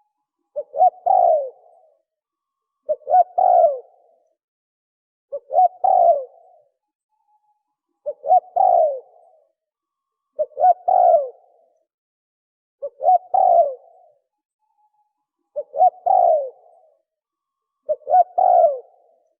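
Spotted dove cooing in a fast, evenly repeated phrase, about one phrase every two and a half seconds, eight in all. Each phrase is a short coo or two followed by a longer coo that falls in pitch.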